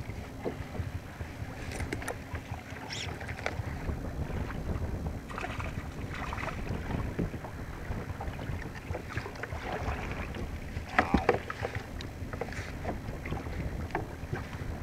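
Wind rumbling on the microphone and water moving around a plastic kayak on open sea, with scattered small knocks and rustles of handling, and one louder short noise about eleven seconds in.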